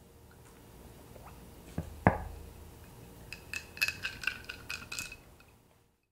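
Glass jar of lemonade stirred with a plastic straw: a single knock about two seconds in, then a quick run of bright, ringing clinks against the glass. The sound cuts off shortly before the end.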